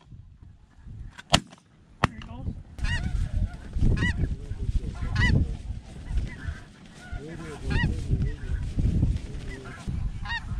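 Two semi-automatic shotgun shots about half a second apart, then a flock of snow geese honking overhead in many short, repeated calls over low wind rumble.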